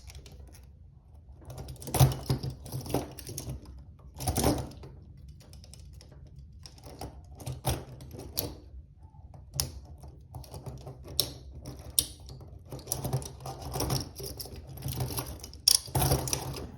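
Double-locked handcuffs being picked with a single tool: irregular metal clicks and short rattles of the cuffs and chain.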